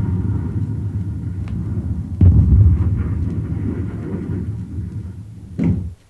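Sound effect from a stereo demonstration LP played back through Bose 301 Series II loudspeakers: a heavy low rumble that fades, with a sudden deep boom about two seconds in and a short burst near the end before it cuts off.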